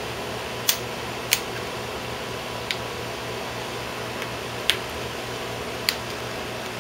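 Plastic screen bezel of an Acer Aspire One D255E netbook being pressed on, its clips snapping into place: five sharp clicks at irregular intervals over a steady low hum.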